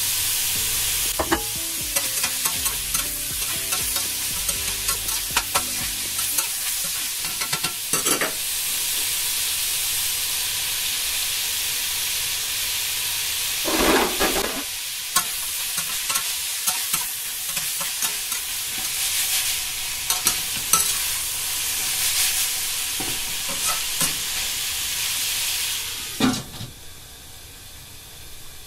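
Stir-fry sizzling in a stainless steel wok while a metal spatula stirs and scrapes, clinking against the pan. There is a louder rush of sizzling about halfway through. Near the end a lid goes on with a clank and the sizzle drops to a quieter, muffled hiss.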